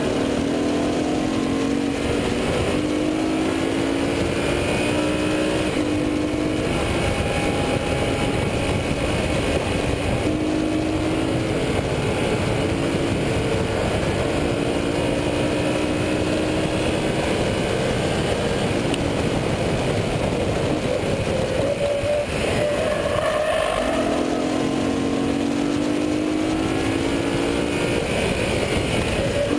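BMW M3's engine heard from inside the cabin at hard throttle on a track lap. Its pitch climbs through the revs and drops back at each gear change, again and again.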